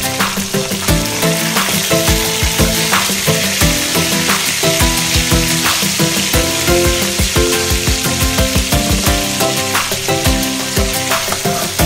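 Chicken pieces sizzling steadily as they fry in hot oil in a metal wok, stirred and turned with a slotted spatula, under background music with a steady beat.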